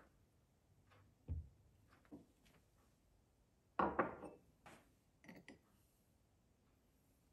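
A small ceramic saucer is set down on a wooden tabletop with a short clatter about four seconds in, followed by a few light metal-on-glass clinks as a stainless mesh tea infuser is handled on a glass mug. A soft knock comes earlier.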